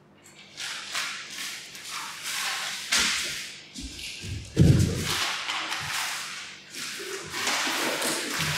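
Loose sheets of paper rustling and swishing in repeated sweeps as they are handled and slid across the floor, with a dull thud about three seconds in and a louder one just before five seconds.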